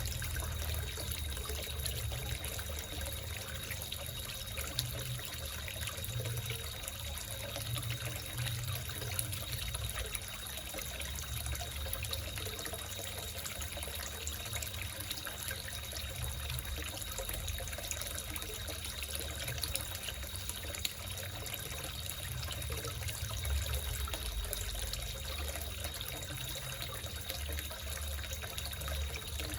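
Water trickling and splashing steadily into a small koi pond, with a thin steady high tone running under it.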